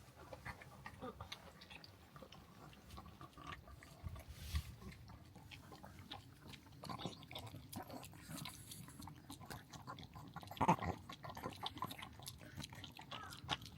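A small dog eating a treat: irregular biting and chewing clicks and crunches, with one louder burst about eleven seconds in.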